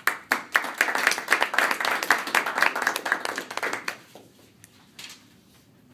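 Audience applauding, many quick claps that thin out and die away after about four seconds, with a couple of last single claps near the end.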